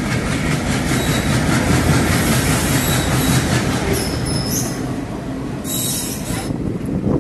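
Passenger train rolling along the track, heard from aboard: a steady rumble of wheels on rails with rhythmic clatter over the rail joints, and brief high wheel squeals about four and six seconds in.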